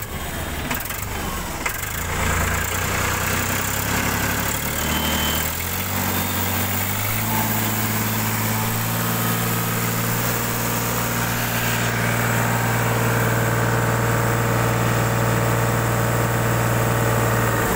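Powertrac Euro 50 tractor's three-cylinder diesel engine running just after starting, first at its 700 rpm idle. Its speed rises in steps, about two seconds in and again around six seconds in, then holds steady at the higher speed.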